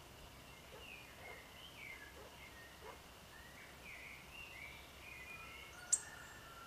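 Several small garden birds singing, faint: quick chirps and short slurred phrases overlapping over a light hiss. A brief sharp high sound near the end stands out as the loudest moment.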